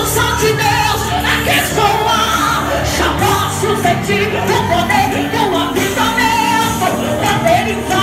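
Loud live Pentecostal worship song: a woman sings into a handheld microphone over amplified accompaniment played through PA speakers.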